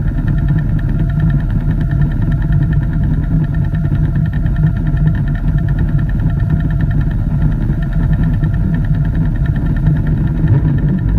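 Steady low droning tone carried on an unidentified FM radio broadcast, even in level, with a fast flutter running through it and a few faint higher steady tones above.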